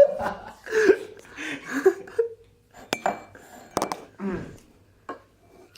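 Metal spoon clinking against a dish a few times while eating, with sharp clinks about three and four seconds in.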